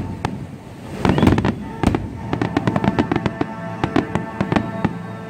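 Fireworks display: aerial shells bursting in a rapid run of crackling pops, with a heavier boom about a second in. Music plays alongside.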